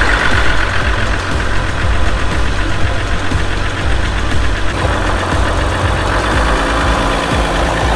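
Jeep Gladiator's 3.0-litre EcoDiesel V6 idling steadily just after being started.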